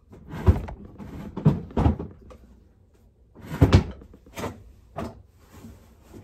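Drawers being opened, shut and filled as things are put away: a string of about six bumps and knocks, the loudest a little past halfway, with shuffling noise between them.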